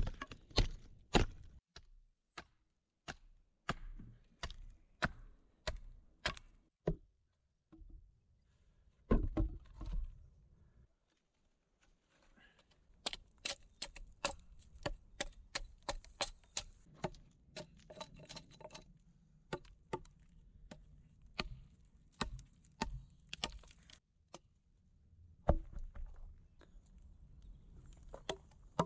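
Hatchet chopping wood: a long run of sharp strikes splitting and shaping a wooden stake, often about one a second, with a short break about a third of the way in.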